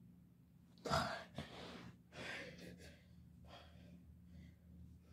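A boy breathing hard through push-ups: a sharp gasping breath about a second in, then softer puffed breaths.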